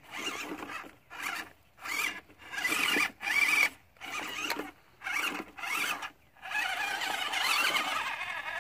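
Small 260 brushed motor and gearbox of a WPL C54-1 1/16 RC crawler whining in short stop-start bursts as the throttle is worked to climb over rocks, then running steadily near the end.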